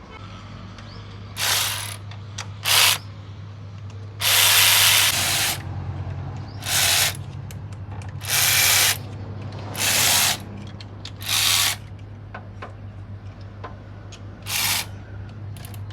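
Repeated short bursts of hiss from a pressurised nozzle, about eight of them, mostly under a second each, with the longest about four seconds in. A steady low hum runs underneath.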